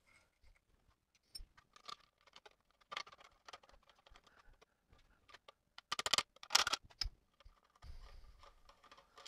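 Light metallic clicks and taps of a small sheet-metal tool tray being handled and pressed against the end of a surface grinder's cast-iron table, with a quick cluster of sharper clicks about six seconds in.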